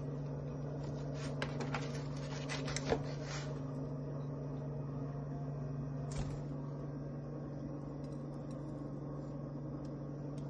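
Steady low hum of a kitchen appliance or fan, with a few light scrapes and clicks of a spatula against a metal baking pan as fish fillets are lifted out, mostly in the first few seconds and once more about six seconds in.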